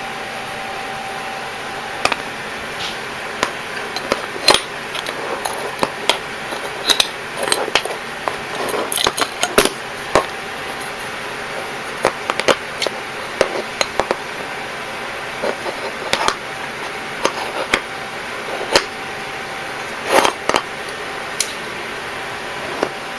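Irregular clicks, clacks and light knocks of hard parts being handled on a gas-blowback airsoft rifle, at times in quick clusters, over a steady hiss.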